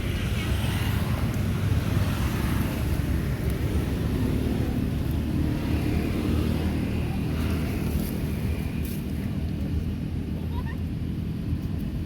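Steady low rumble of outdoor background noise, like distant road traffic, with no distinct events.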